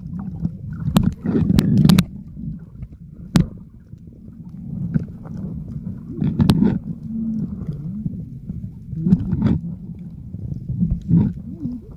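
Muffled underwater sound from a camera held below the surface while snorkeling: a low rumbling and sloshing that swells and fades, with scattered sharp clicks and knocks.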